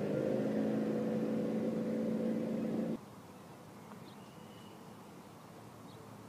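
Motorboat engine running steadily on the river, stopping abruptly about three seconds in; then faint open-air quiet with a brief high chirp.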